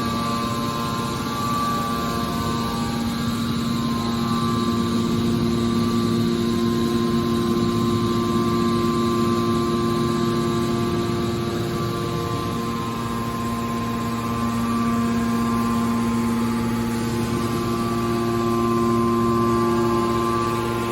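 Hydraulic can baler's electric motor and pump running with a steady hum. The pitch of the hum shifts about twelve seconds in.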